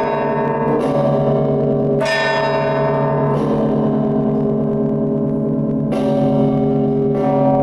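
Russian Orthodox church bells rung by hand in a zvon: several bells sound together, their tones ringing on and overlapping, with a fresh strike about every one to two seconds.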